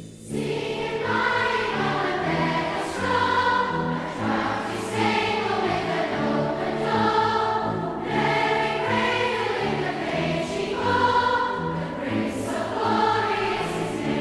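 A choir singing, the phrases rising and falling every couple of seconds.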